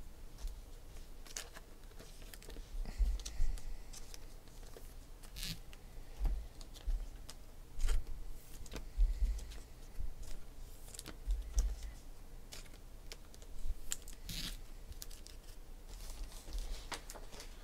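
Trading cards flipped through and handled by hand: card stock sliding and flicking, clear plastic sleeves rustling, with scattered light clicks and a few soft bumps.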